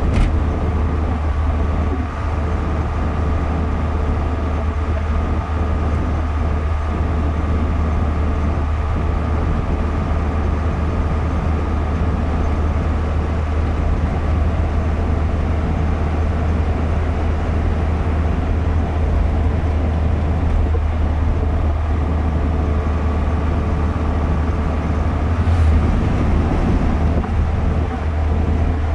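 Car cabin noise while driving at highway speed: a steady low rumble of engine and tyres on the road with a faint constant hum.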